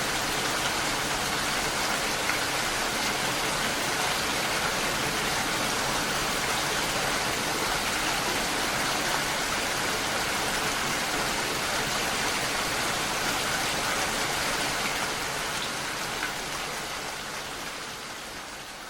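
Steady, dense rain falling on a lake's surface, a continuous hiss of many small drops, fading out over the last few seconds.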